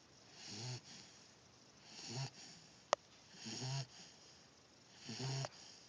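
Steady snoring: four slow snores about a second and a half apart, each swelling and then stopping abruptly. A single sharp click about three seconds in is louder than the snores.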